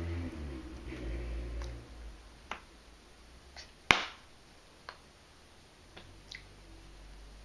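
Hands striking and tapping together: a handful of sharp, separate clicks, the loudest about four seconds in, after a low rumble over the first two seconds.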